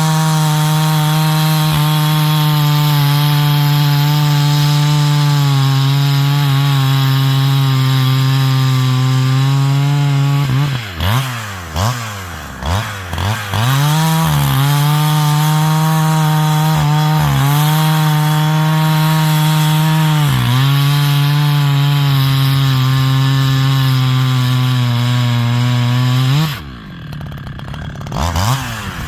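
A 70cc chainsaw with a 25-inch bar bucking a stringybark log, the engine held at a steady high pitch under load while cutting. About ten seconds in, the revs drop and pick up again several times. Near the end the engine briefly falls to idle, then revs back up.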